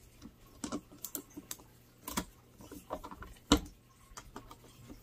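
Hand screwdriver driving screws into the plastic lid of a battery box: irregular small clicks and taps of the bit and screws, with one sharper click about three and a half seconds in.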